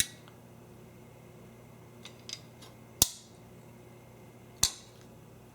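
Fletching clamps being unclipped from a JoJan Multi-Fletcher jig: three sharp plastic-and-metal snaps, one at the start, one about three seconds in and one near the end, with a fainter click between.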